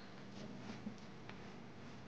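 Faint soft pats and squishes of chocolate bread dough being lifted and pressed on a stone countertop: a few light taps, over a low steady hum.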